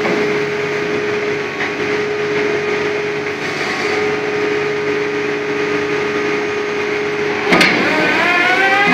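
Liebherr LB 36 pile-drilling rig running steadily with a held hum while its auger is drawn up out of the pile casing. About seven and a half seconds in comes a sharp knock, and then the machine's pitch rises as it revs up.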